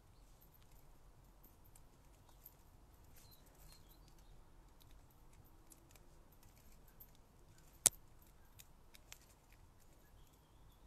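Faint handling of die-cut cardstock: small scattered ticks and clicks as the leftover bits of the cut grasses are poked out, with one sharp click about eight seconds in.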